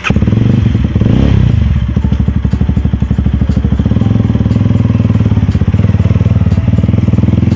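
Mahindra Mojo's 295 cc single-cylinder engine running as the motorcycle pulls away, with a brief rise and fall in revs about a second in, then a steady, evenly pulsing exhaust note.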